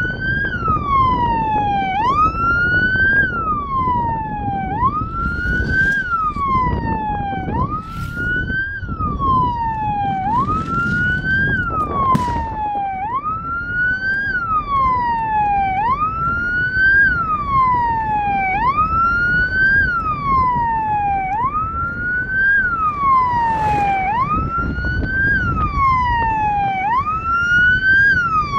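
Siren wailing in a repeating cycle: a quick rise in pitch, then a slower fall, about once every two seconds. A few short sharp noises sound over it.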